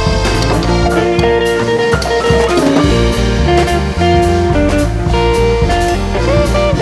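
Background music: a song with guitar over a steady drum beat.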